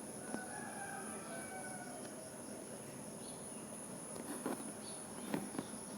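Faint room ambience with a steady high-pitched insect chirring in the background, with a few soft clicks.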